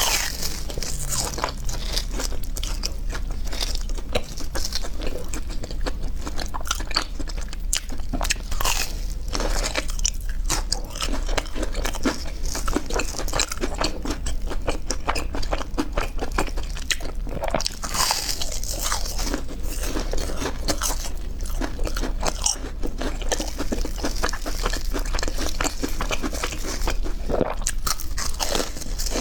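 Close-miked crunching bites and chewing of deep-fried peanut bread: a dense, irregular crackle of crisp crust breaking in the mouth. The bread was fried at a little too high a heat, which makes the crust hard and crunchy.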